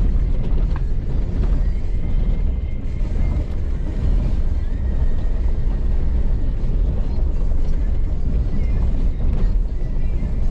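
Off-road vehicle driving a dirt trail: a steady low rumble of engine, tyres and wind.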